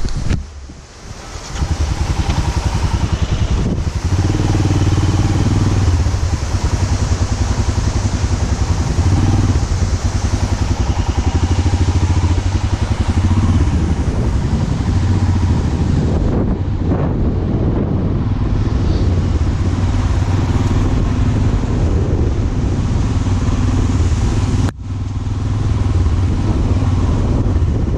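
Royal Enfield Himalayan 411's single-cylinder engine pulling steadily under load on a rough offroad climb. Its note falls off for a moment about a second in and again near the end.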